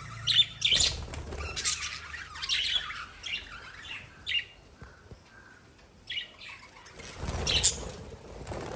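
Pet lovebirds giving shrill chirps and squawks in quick bursts. There is a quieter stretch in the middle, then another loud burst near the end.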